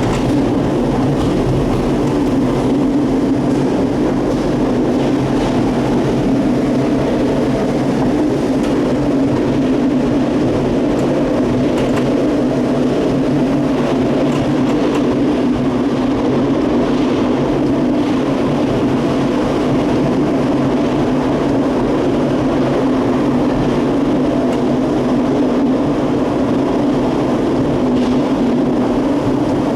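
Gateway Arch tram capsule running steadily down inside the arch leg: a loud, even mechanical rumble with a constant low hum.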